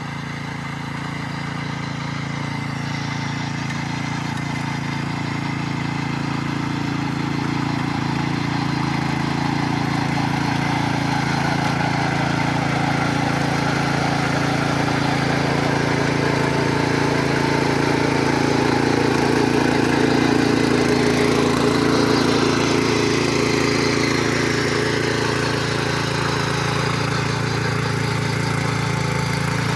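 Mini tractor engine running steadily under load while ploughing, growing gradually louder to a peak about two-thirds of the way through, then easing a little.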